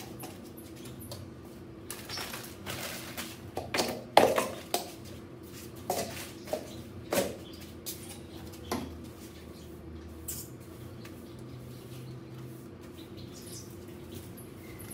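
Broom bristles sweeping spilled potting soil across floor tiles, with knocks and clatters of a plastic dustpan, the loudest knock about four seconds in. The knocks and scrapes come in a cluster and thin out after about nine seconds.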